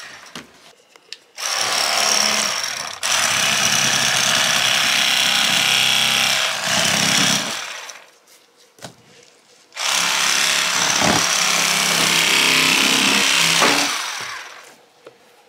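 Electric fillet knife running while it cuts walleye fillets. It runs for about six seconds, stops, then runs again for about four seconds.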